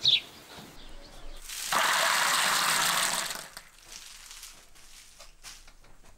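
Dried broad beans poured out onto a surface in a steady rushing rattle for about two seconds, followed by a few faint scattered clicks as they settle.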